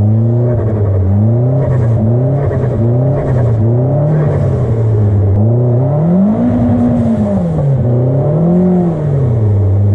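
Turbocharged Mitsubishi 4B11T four-cylinder engine of a Lancer Evo X build revving up and down in quick throttle blips, about once a second, then in two longer, slower revs. Turbo flutter chatters as the throttle lifts.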